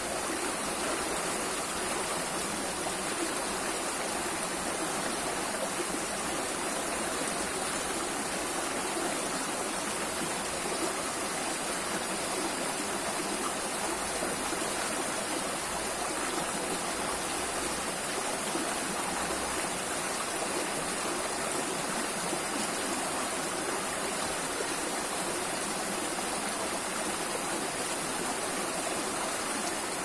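Shallow rocky stream running over stones and small riffles, a steady, unbroken rush of water heard close to the surface.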